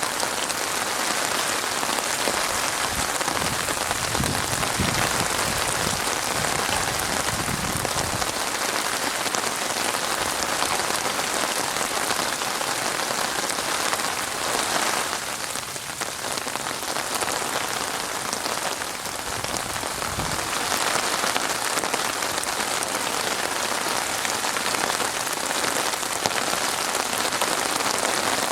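Steady rain falling and pattering on a surface, with a soft low rumble for a few seconds early on.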